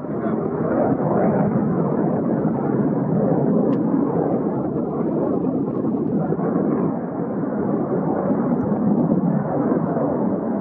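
Jet noise from an approaching Eurofighter Typhoon's twin turbofan engines: a steady, deep noise.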